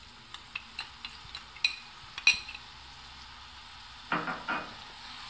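Minced garlic sizzling gently in melted butter in a frying pan over a low flame, stirred with a metal spoon. Sharp clinks of the spoon and the dish against the pan come in the first two seconds or so, then a short louder scrape about four seconds in.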